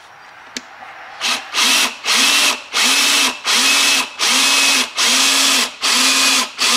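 Handheld power drill boring a hole through the car's inner body panel. After about a second of quiet it runs in a string of short trigger bursts, each about half a second long and quickly reaching speed, then runs steadily near the end.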